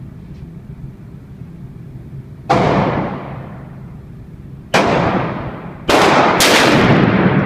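Four revolver shots fired at an irregular pace, the last two close together, each report ringing out in the echo of an indoor shooting range.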